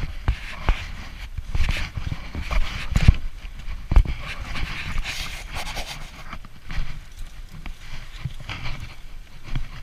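Footsteps scrambling over loose rocks and through brush, with irregular knocks and thumps, twigs and leaves scraping, and hard panting breath from the climb. The loudest knocks come a little after three seconds and at about four seconds.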